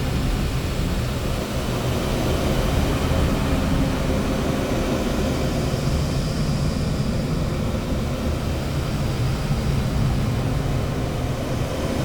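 A dense, steady droning noise with a low hum under it, from a recorded album track.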